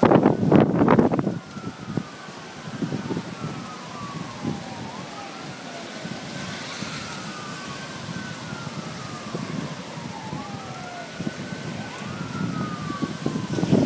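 Sirens wailing, several overlapping, each slowly rising and falling in pitch, over a steady rush of wind and rain. Heavy wind gusts buffet the microphone in the first second or so.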